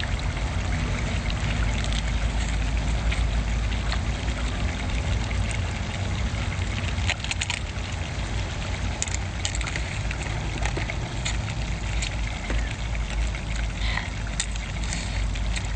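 Crab shell cracking and crunching as a cooked crab is bitten into and pulled apart, in a scatter of sharp clicks and snaps, most around the middle and again near the end. A steady low rumble runs underneath.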